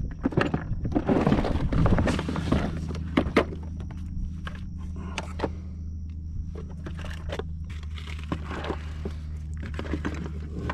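Irregular thunks and knocks, like handling on a plastic kayak, many in the first few seconds and sparser after, over a steady low hum.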